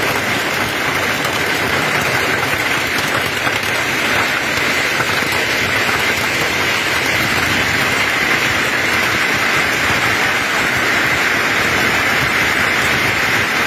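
Hail and heavy rain pelting down in a storm: a loud, steady hiss with no let-up.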